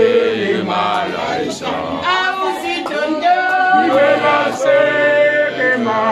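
A group of guests singing together without instruments, many voices at once on held, rising and falling notes.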